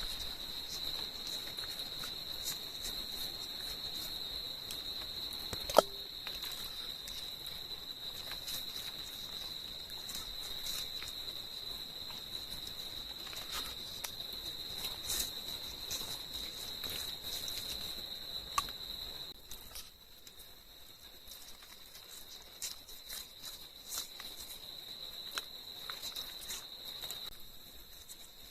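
Insects, crickets or similar, keeping up a steady high-pitched chorus that drops away about two-thirds of the way through and starts again near the end. Scattered small clicks and one sharp knock about six seconds in.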